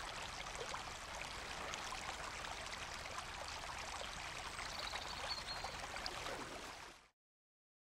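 Shallow stream rushing over rocks, a steady water sound that cuts off suddenly about seven seconds in.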